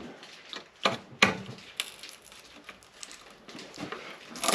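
A few sharp metal clicks and clinks, spaced irregularly, from hand tools and engine parts being handled while the oil pan and windage tray come off a small-block V8.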